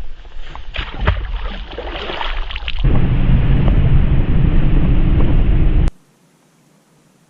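Wind buffeting the microphone on a fishing boat, with scattered knocks and rattles for the first three seconds. Then a loud, steady rumble takes over and cuts off abruptly about six seconds in, leaving a faint hiss.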